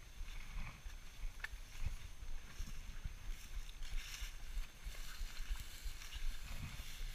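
Footsteps through tall dry grass, the stalks swishing against legs, with dull thuds of the steps.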